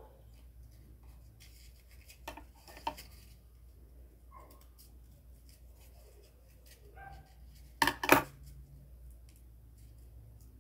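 Scissors snipping through cardboard: two sharp cuts in quick succession about eight seconds in, the loudest sounds, amid light clicks and rustles of cardboard pieces being handled.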